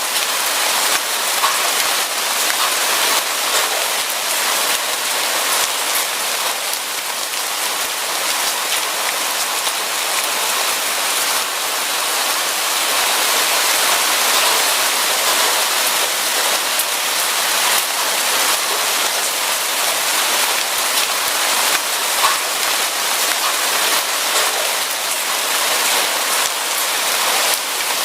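Steady rain falling on a surface, an even dense hiss peppered with the ticks of individual drops, with no thunder.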